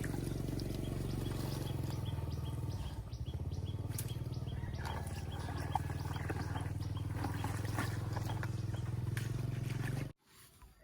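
A steady low droning hum, with faint short ticks repeating through it; it cuts off abruptly near the end.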